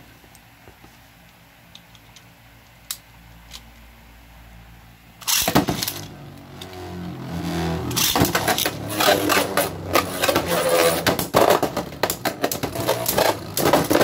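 Beyblade X spinning tops launched into a clear plastic bowl stadium: one goes in suddenly a little past five seconds, a second from a string launcher about three seconds later. The tops then whir and grind on the plastic floor, clicking and clattering against each other and the bowl wall.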